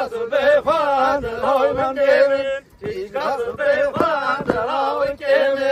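A man singing a Kurdish folk dance song in a heavily ornamented, wavering melody, breaking off briefly just before the three-second mark.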